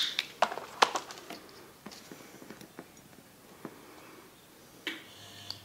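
A sharp snip of side cutters cutting a piece of heat-shrink tubing, followed by a quick cluster of clicks and taps and then scattered light ticks of small fishing tackle being handled on a workbench.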